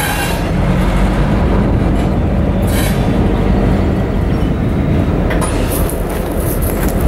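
Freight train of tank cars rolling past close by with a Norfolk Southern diesel locomotive: a steady loud rumble of the wheels on the rails under the low drone of the diesel engine, with a few brief sharper clatters.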